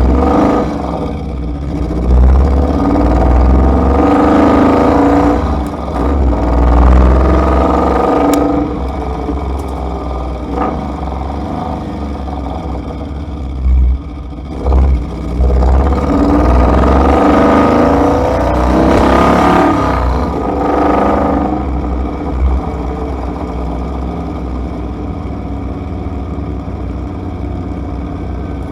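Ineos Grenadier driving: the engine's pitch rises and falls several times as it accelerates and changes gear, over a steady low rumble.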